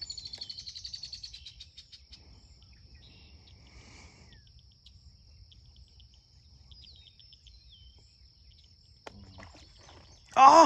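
Birds calling with short falling chirps and a quick trill near the start, over a steady high-pitched insect trill. A man's voice breaks in at the very end.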